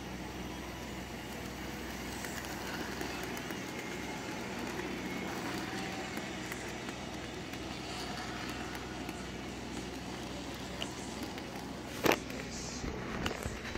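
Model railway freight train running on the track: a steady whirring rattle of the motor and rolling wagons. A single sharp click about twelve seconds in is the loudest sound, followed by a few lighter clicks near the end.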